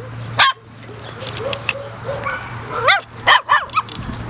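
Puppies yipping in short, high yelps, one about half a second in and a quick run of four near the end, with whining in between.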